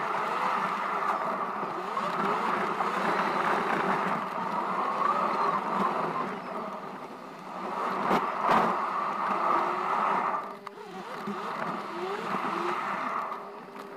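Inside the cabin of a 2013 Citroen Berlingo with its 1.6 HDi four-cylinder diesel on the move: steady engine and tyre noise, the engine pitch rising several times as it pulls. Two knocks come about eight seconds in, and the noise dips briefly a couple of seconds later.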